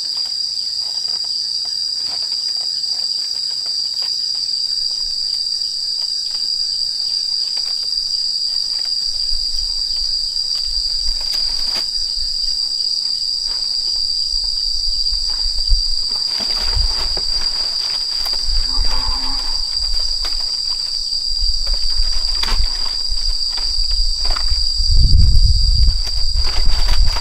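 Steady, high-pitched drone of an insect chorus, crickets or cicadas, running unbroken. A low rumble comes in and out underneath and grows louder near the end, with a few scattered knocks.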